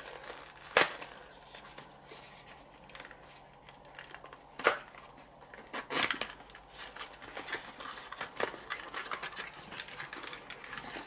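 A small cardboard box and its clear plastic insert being opened and handled: a few sharp clicks and taps, then a run of quick crinkling near the end as the plastic comes out.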